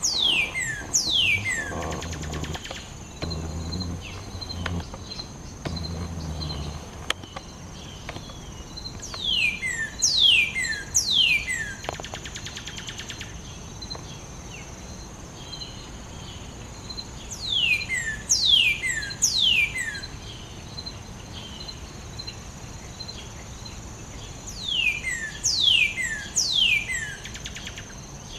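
Northern cardinal singing: phrases of three or four loud, steeply down-slurred whistles, repeated about every eight seconds. A steady high insect drone runs underneath.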